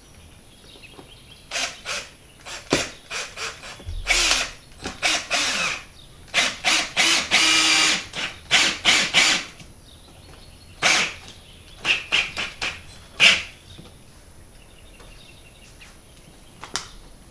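Power drill driving a screw to mount an LED light fixture, run in a string of short bursts with one longer run of about a second near the middle.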